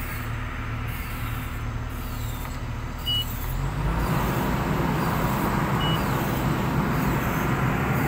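Excavator diesel engine running steadily, then picking up speed and running louder from about four seconds in, just after a click.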